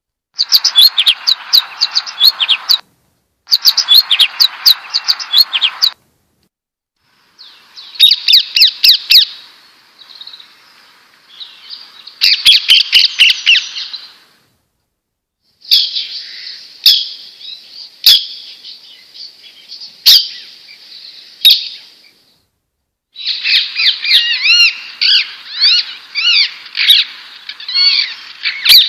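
Small songbirds chirping and twittering in rapid runs of short high notes. The sound comes in several separate stretches joined by abrupt cuts with brief silences between.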